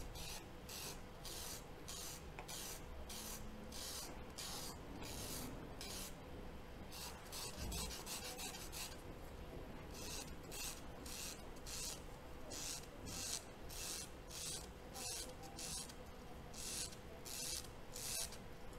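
A stick of drawing charcoal scraped back and forth over a sandpaper sanding block in short strokes, about two a second, pausing briefly a couple of times. It is being sharpened to a fine point with light pressure and a turning motion.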